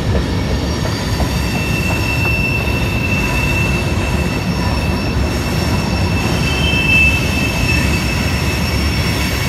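Freight cars of a CSX freight train rolling past with a steady rumble of wheels on rail. A thin, high wheel squeal comes in about a second in and returns, louder, around seven seconds.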